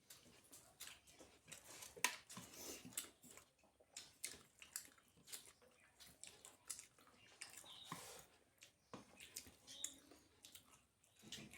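Faint, close chewing and eating: irregular wet mouth clicks and smacks from a person eating roti and paratha with dal and curry.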